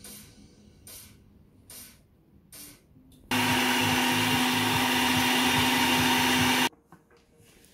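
Russell Hobbs countertop blender running steadily for about three seconds, blending a green liquid dressing; it starts abruptly and cuts off suddenly. A few faint knocks come before it.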